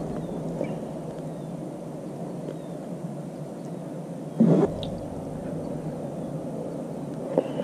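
Steady low outdoor background noise of wind and water at the shore. A single hard knock comes about halfway through, and a lighter one near the end.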